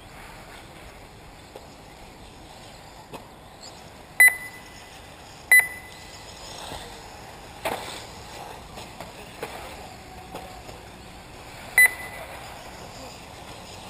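Short, sharp electronic beeps from the race's lap-counting system as buggies cross the timing line: one about four seconds in, another a second later, and a third near the end. A single knock comes midway, over a low background of outdoor noise.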